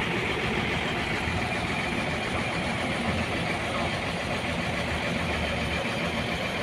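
A large vehicle's engine idling steadily, a low even hum with outdoor noise around it.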